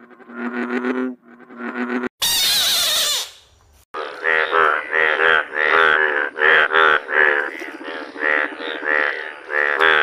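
A bullfrog croaks in deep, pitched calls for about two seconds. A brief loud, harsh burst of noise follows. From about four seconds in, a chorus of breeding male Indian bullfrogs gives rapid, overlapping croaks, several a second.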